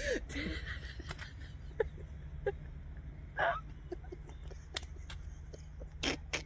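Women laughing helplessly, mostly breathless: scattered short gasps and squeaks, then a quick run of laughing bursts near the end.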